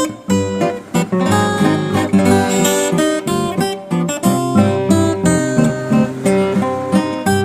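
Background music led by a plucked, strummed acoustic guitar.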